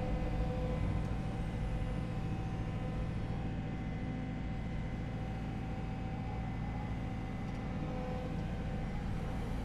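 Cat excavator's diesel engine running steadily with its hydraulics working as the arm lifts a bucket of sticks and mud out of a beaver dam: a constant engine hum and low rumble.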